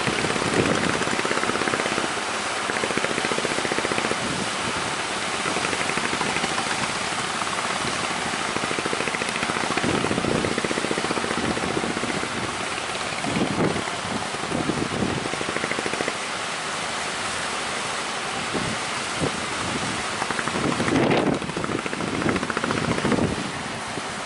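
Speedboat underway in strong wind: a steady rushing noise of wind on the microphone and water, with gusts buffeting the microphone now and then.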